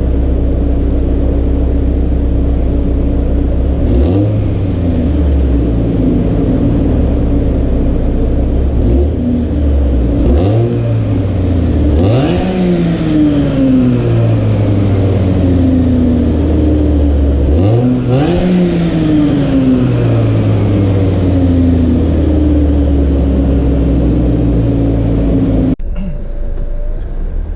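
Supercharged 2.0-litre LSJ four-cylinder of a 2007 Chevrolet Cobalt SS, newly fitted with a cold air intake, idling and revved about five times; the two bigger revs fall back to idle slowly, with supercharger whine rising and falling with the revs. The sound drops off abruptly near the end.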